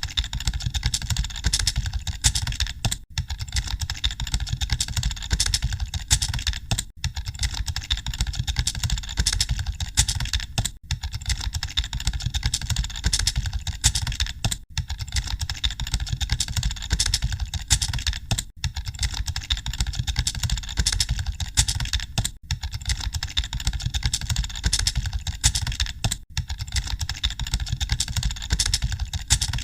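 Many computer keyboards being typed on at once: a dense, continuous clatter of keystrokes, with a brief dip about every four seconds.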